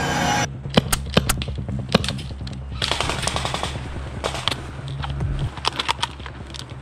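Airsoft guns firing: scattered sharp cracks and a short rapid burst about three seconds in, over background music.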